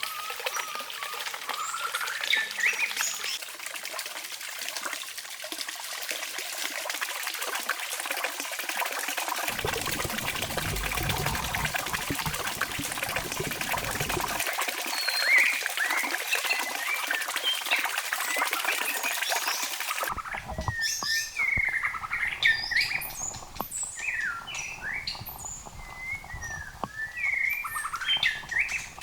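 Birds chirping: many short, quick calls over a steady outdoor hiss, with the background changing abruptly a few times.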